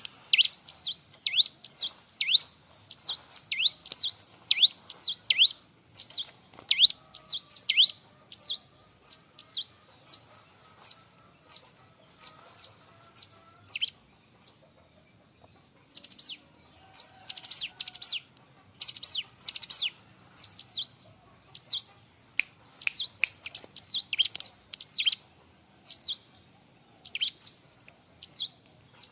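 Bar-winged prinia (ciblek) calling loudly and persistently: sharp chirps that drop steeply in pitch, about two a second. About halfway there is a short pause, then a rapid burst of clustered notes before the steady chirping resumes.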